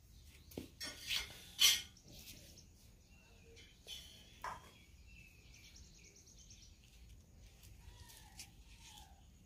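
Faint bird calls: short falling chirps and a quick trill. A few sharp clicks and rustles of handling break in during the first two seconds and again around four seconds in, the loudest about one and a half seconds in.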